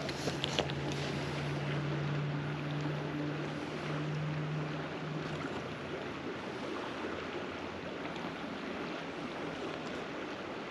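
Creek water running steadily. A low steady hum sounds under it through the first half and fades out about halfway.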